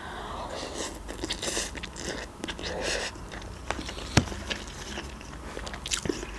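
Close-up mouth sounds of instant noodles being eaten: a slurp of noodles, then wet chewing, with one sharp click a little after four seconds in.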